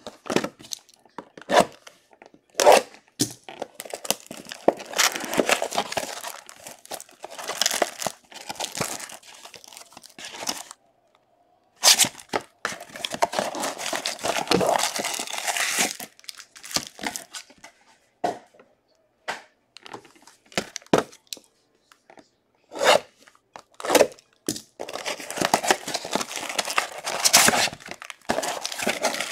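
Plastic shrink-wrap being torn and crinkled off a baseball-card mega box by hand, in several long rustling stretches with short sharp taps between.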